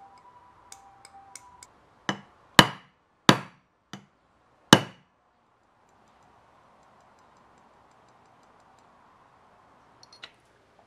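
Steel plane blade parts knocking together as they are handled: five sharp metal clicks, each with a short ring, over about three seconds, then two faint clicks near the end.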